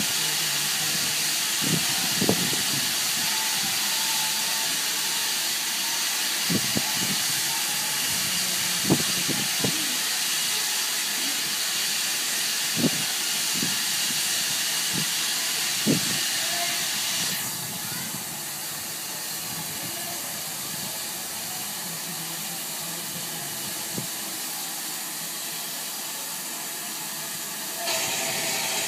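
Steam hissing steadily from Bulleid Battle of Britain class steam locomotive 34070 Manston while it stands at rest, with a few light knocks. The hiss drops noticeably about two-thirds of the way through and comes back up near the end.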